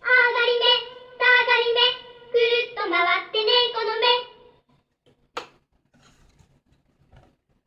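Sony Talking Card Player CP-1100 playing back a short sung phrase from a card through its small speaker: a child's voice sings several held notes for about four and a half seconds. A single click follows about a second later.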